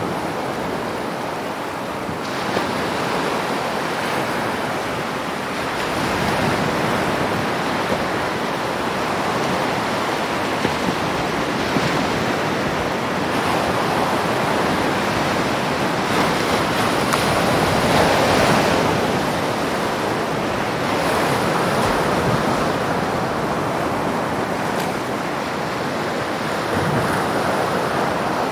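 Water splashing and rushing against the hull of a Hobie Outback pedal kayak as it moves across choppy water, with wind buffeting the microphone.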